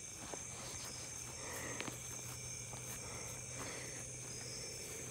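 Night chorus of crickets and other insects, a steady high-pitched trill, with a few faint footfalls in grass.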